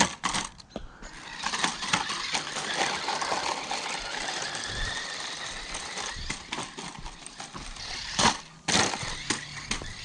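Small 1:18-scale RC truck with a little brushed motor being run hard, its wheels and plastic chassis rattling over the ground with a faint whine that rises and falls. Clattering knocks throughout, with two loud hard impacts about eight seconds in as the truck is crashed about in a durability test.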